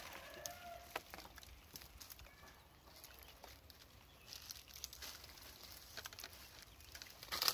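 Dry leaf litter rustling and crackling faintly as a macaque moves about and forages, with a faint short call about half a second in and a louder rustle just before the end.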